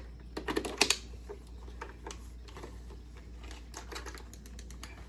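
Hard plastic clicking and rattling as the parts of a toy gel blaster are handled and fitted together: a quick cluster of clicks just under a second in, then scattered lighter clicks.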